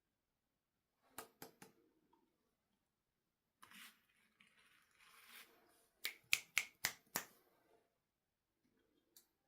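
Plastic toy being handled: three quick clicks, a stretch of rustling, then a run of five sharp clicks, the loudest, and a single click near the end.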